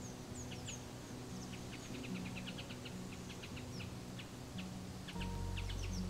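Woodland songbirds chirping, with quick high chirps and a few falling whistles, over soft background music of low held notes; a deeper sustained chord comes in about five seconds in.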